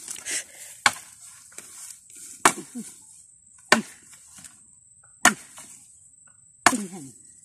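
A machete chopping into a wooden pole: five sharp strikes about a second and a half apart. A steady high insect buzz runs behind them.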